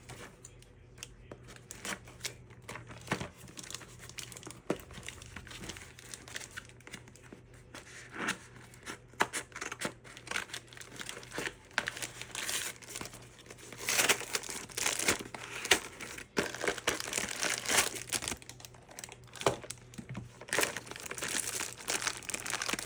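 Packaging being crinkled and torn open by hand as a small parcel of parts is unwrapped, in irregular rustles that grow busier and louder about halfway through.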